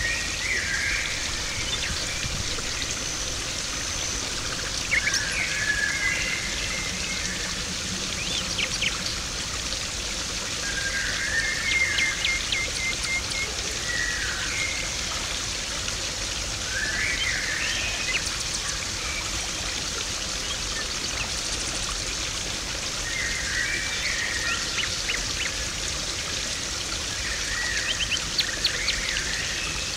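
Garden pond water trickling and splashing steadily, with a bird singing short phrases every few seconds.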